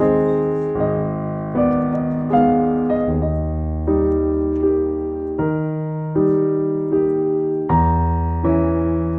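Background piano music: soft chords struck at an even pace, about one every three-quarters of a second, each fading before the next.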